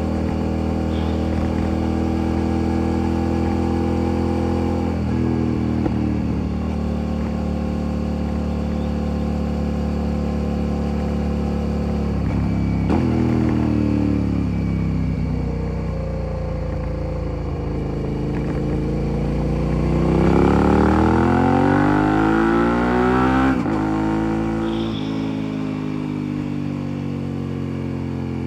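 Motorcycle engine and exhaust under way, recorded close to the exhaust from the pillion seat. It holds a steady pitch for the first part, with sudden drops in pitch a few times. About two-thirds in it climbs steadily in pitch as it accelerates, then drops sharply and settles.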